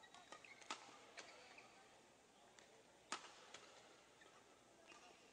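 Quiet badminton hall ambience between rallies, with a few faint sharp clicks; the loudest comes about three seconds in.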